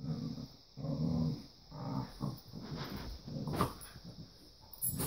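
Dogs play-growling as they wrestle: several short, low growls in the first two seconds or so, then scuffling with a few sharp noises.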